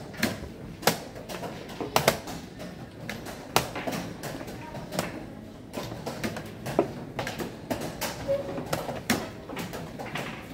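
Blitz chess being played: plastic chess pieces set down on the board and the chess clock's buttons pressed, giving a quick, irregular run of sharp clicks and knocks.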